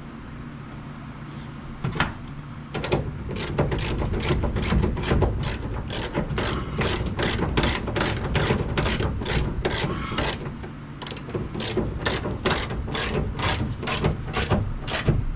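Hand ratchet wrench clicking in an even rhythm, about two clicks a second, as the door hinge bolts are turned, with a short pause about ten seconds in.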